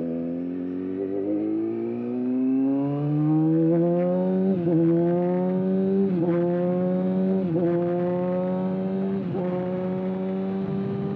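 Kawasaki ZX-6R inline-four engine breathing through an aftermarket exhaust, pulling up through the gears: the note climbs steadily, drops briefly at each of four upshifts, then climbs again.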